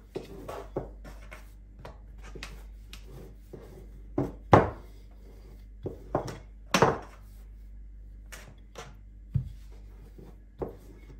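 Wooden rolling pin rolling out shortcrust pastry dough on a granite worktop: soft rubbing broken by irregular knocks as the pin bumps the stone, the loudest about four and a half, six and seven seconds in.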